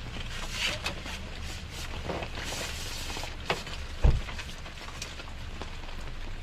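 Knocks, clicks and rattles of an RV awning and its support poles being handled and folded in, with one heavy thump about four seconds in, over a steady low rumble.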